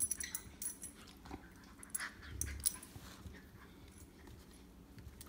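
Miniature Schnauzer and Great Dane play-fighting on carpet: short scuffling and mouthing noises with scattered clicks, loudest at the start and again about two to three seconds in.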